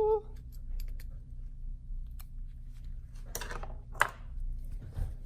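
Small scattered clicks and two brief scraping rustles from hand work on small parts of the shifter mechanism, over a low steady hum.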